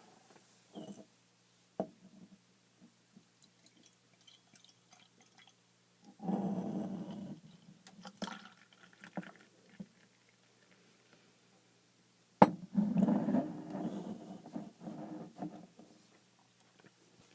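Dark smoked porter poured from a bottle into a glass in two spells, the second begun by a sharp clink of glass on glass.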